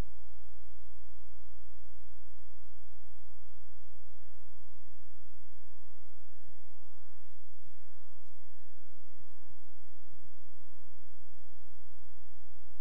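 Steady electrical mains hum with a stack of buzzing overtones, holding one pitch and level throughout.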